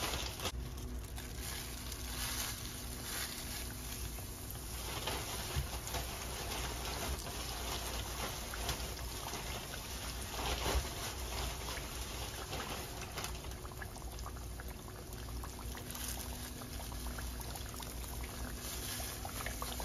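Battered catfish fillets frying in hot oil in a skillet: a steady sizzle with many small crackles.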